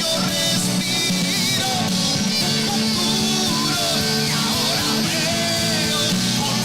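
Live worship band music with electric guitar and steady sustained chords, with a voice singing faintly at times.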